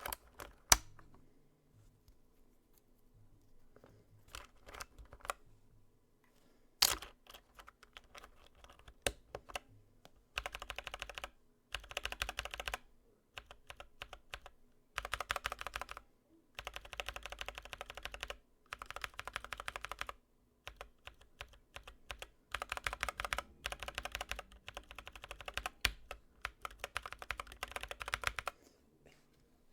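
Typing on a mechanical keyboard with PBT keycaps and tactile Akko Ocean Blue switches fitted with Glorious Panda springs. A few separate key presses come first, then from about ten seconds in, runs of fast typing a second or two long with short pauses between.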